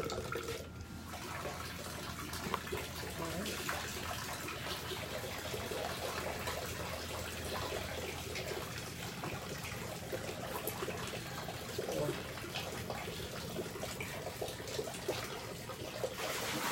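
Water trickling steadily through a clear acrylic meandering-river flow model, fed by a hose at about 1.65 litres per minute.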